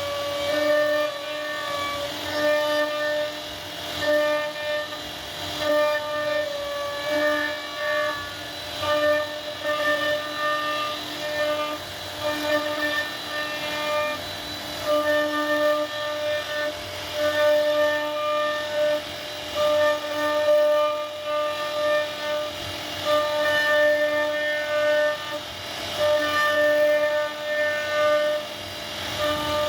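CNC router spindle whining at a steady pitch as the bit carves wood, the sound swelling and fading every second or two as the cutter moves through the work.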